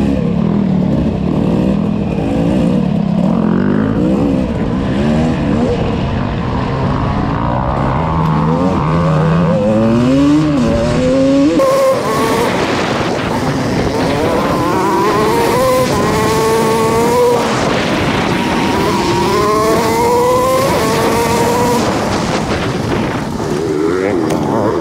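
Off-road dirt bike engine revving hard under throttle, its pitch climbing again and again and dropping back as it pulls through the gears.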